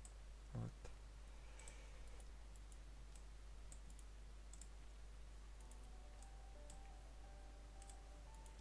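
Faint, irregular computer mouse clicks during selection work, with a soft low knock about half a second in.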